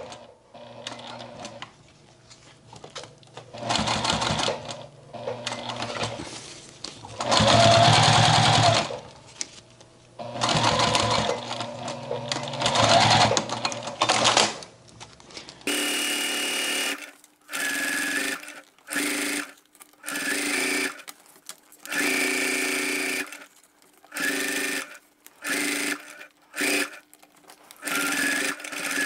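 Sewing machine stitching thick thread through a cork bag handle in runs that start and stop, longer runs in the first half and short runs of about a second each, one after another, in the second half.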